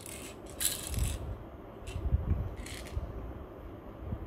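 Quiet handling noises: a few brief rustles and soft low thumps.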